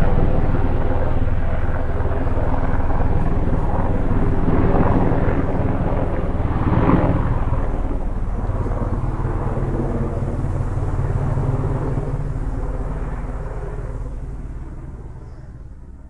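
Helicopter running with a steady low drone of rotor and engine, swelling briefly about halfway through, then fading away over the last few seconds.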